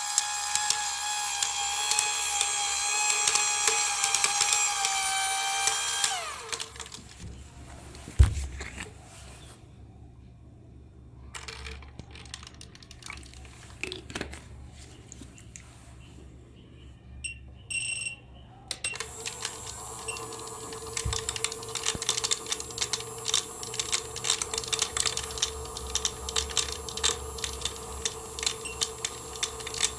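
Small electric motor of a toy washing machine whining at a steady high pitch, then winding down and stopping about six seconds in. After a quieter stretch with a few knocks, a dense rapid crackling over a steady hum starts about twenty seconds in.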